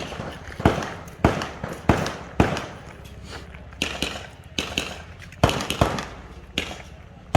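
Handgun shots fired in an irregular string, about ten sharp cracks spaced roughly half a second to a second apart, each trailing off in a short echo.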